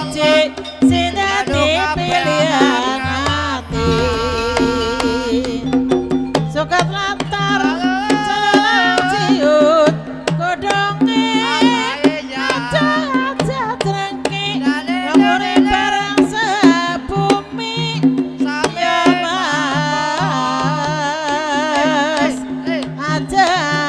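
Banyumasan ebeg accompaniment music: hand drumming over a gamelan-style ensemble, with sustained low tones and a wavering melody line.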